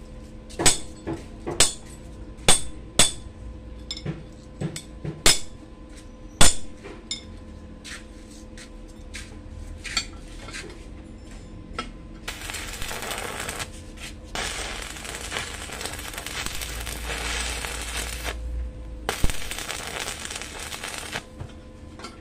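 Steel parts clinking and knocking sharply on a steel worktable, about a dozen hits over the first seven seconds. Then, from about twelve seconds in, a stick welder's arc crackling and sizzling as a steel round bar is welded, in three runs of a few seconds each.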